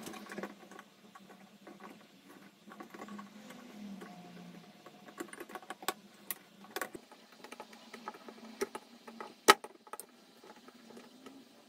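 Small clicks, taps and scrapes of painted metal oil-lamp parts being handled and pressed together by hand, with one sharp click about nine and a half seconds in.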